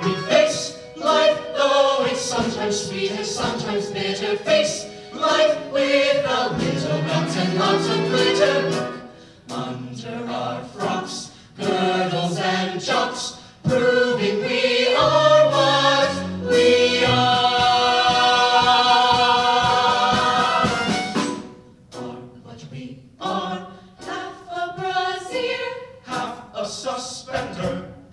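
An a cappella vocal ensemble of mixed men's and women's voices singing into microphones in close harmony, in short rhythmic phrases, with one long held chord about two-thirds of the way through.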